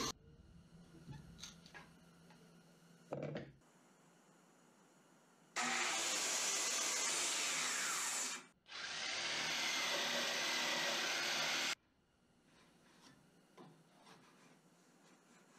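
Handheld electric power tool cutting along a wooden spar blank: two steady runs of about three seconds each, separated by a brief stop. Before them come a few faint knocks and a short scrape. After them come quiet handling sounds.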